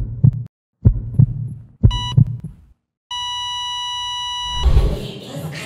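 Heartbeat sound effect: paired low thumps, about one pair a second. About two seconds in comes a short beep, then a second later a steady beep held for about a second and a half. A brief low rumble near the end leads into music.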